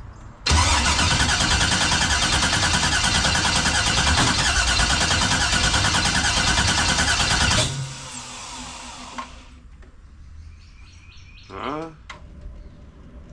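A car's new starter motor cranking the engine steadily for about seven seconds, then cutting off without the engine catching, during a no-start fault. A bird chirps near the end.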